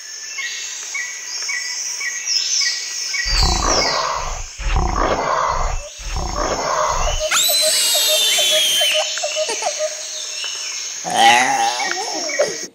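A wild-animal sound-effect track. High-pitched calls, then three deep lion roars between about three and seven seconds in, followed by high falling whistles over a fast rattling call and one more gliding cry near the end.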